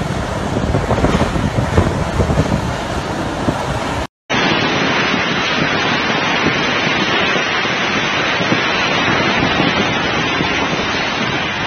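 Storm wind buffeting the microphone with heavy rain, a loud, steady rush of noise. About four seconds in, the sound cuts out for an instant and a second recording takes over: a denser, even hiss of driving rain and wind.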